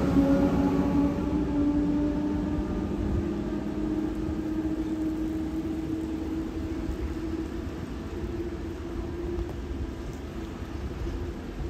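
Electric train pulling away, its traction-motor whine rising slowly in pitch as it accelerates and fading as it draws off.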